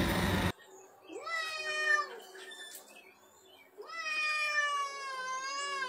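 Tabby cat yowling at a person in two drawn-out, displeased calls: a shorter one about a second in and a longer one from about four seconds in. A burst of noise at the very start cuts off abruptly.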